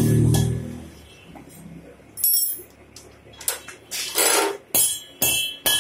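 An abrasive cut-off saw's motor spins down, its hum fading out within the first second. Sharp ringing metal clanks follow from about two seconds in, settling into steady strikes on steel at about two a second, like hammer blows.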